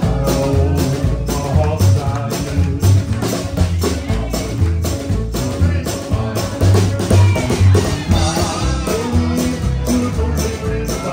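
Live band playing a fast number on upright double bass, drum kit and electric guitar, the drums keeping a steady beat of about three strokes a second.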